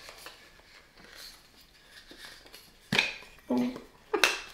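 Plastic packaging of a Funko Soda collectible can being handled and opened: a sharp click about three seconds in and another louder click near the end.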